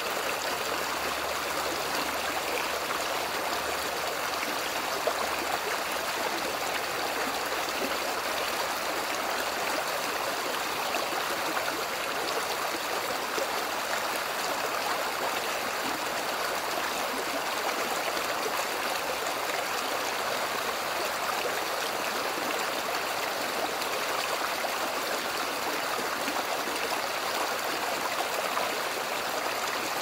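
Shallow, rocky stream flowing over stones: a steady, even rush of water.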